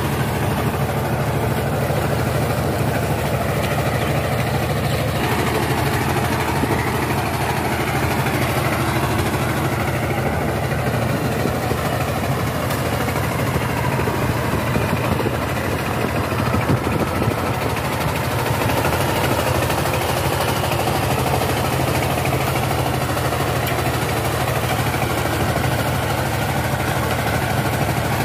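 Single-cylinder diesel engine of a two-wheel power tiller running steadily under load as the tiller works through a flooded paddy field.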